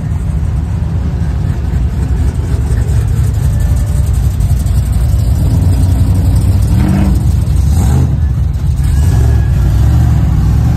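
Pickup truck engines running as lowered trucks drive past one after another, one revving up about seven seconds in.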